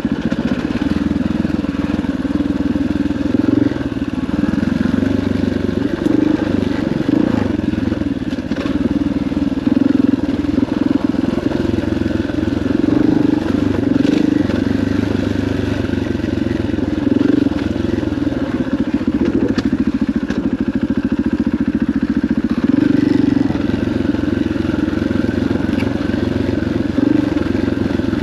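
KTM 500 EXC single-cylinder four-stroke dirt bike engine running under way on a trail, its note rising and falling as the throttle is worked on and off.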